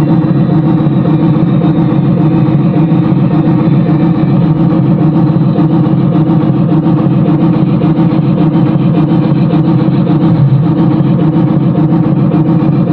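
Loud, steady running noise of a vehicle in motion, with no clear rhythm, pitch change or break.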